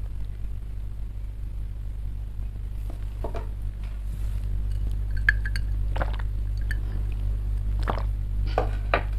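Steady low electrical hum, with a few faint clinks and small handling taps scattered through it, most of them in the second half.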